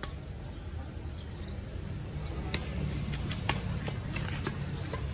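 Badminton rally: crisp racket strikes on a shuttlecock, the clearest two about two and a half and three and a half seconds in, over a steady low background rumble.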